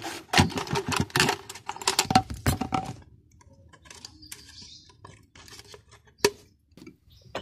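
Scissors cutting through a thin plastic mineral-water bottle: a quick run of snips and plastic crackling, then quieter handling of the cut bottle with scattered clicks and one sharp click about six seconds in.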